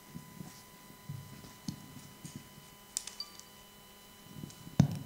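Handling noise from a handheld microphone being moved about: scattered soft bumps and small clicks, with one loud thump near the end, over a faint steady electronic whine.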